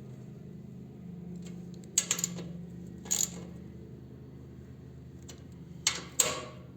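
Sharp metallic clinks of tools and hardware: a quick cluster about two seconds in, a single clink near three seconds and two more near the end. They sound over a steady low hum.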